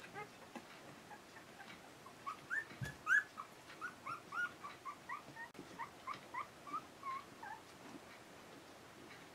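Twelve-day-old Akita puppies whimpering and squeaking: a string of short, high whimpers, a few at first, then about two or three a second, loudest about three seconds in, tailing off after about seven seconds.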